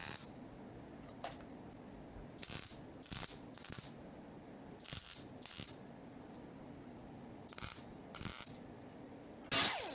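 MIG welder laying short spot welds along a butt-welded seam in thin car-door sheet steel: about nine or ten brief bursts, spaced irregularly with pauses between, the last one louder. The welds are sequenced, spread out along the seam so heat does not build up in one spot of the thin metal.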